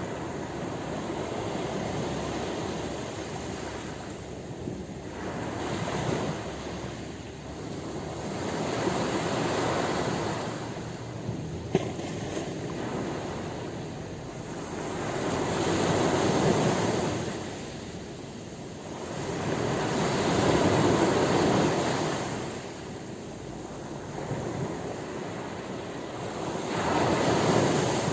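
Ocean waves breaking and washing in, in slow surges that swell and fade about every four to six seconds, the later ones louder. A single brief sharp click about halfway through.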